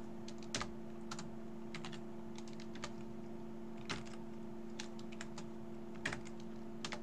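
Typing on a computer keyboard: scattered, irregular key clicks, with a steady low electrical hum beneath.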